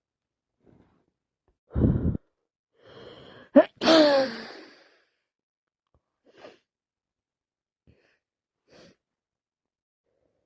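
A woman with a heavy cold sneezing. A short low burst comes about two seconds in. A hissing breath in follows, then one sharp sneeze with a voice that falls away over about a second. A few faint sniffs come after it.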